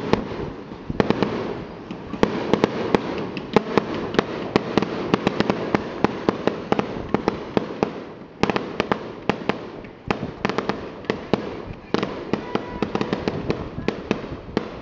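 Aerial fireworks going off in rapid succession: a dense string of sharp bangs and crackles, several a second, with a few brief lulls. The sharp reports sound like gunshots.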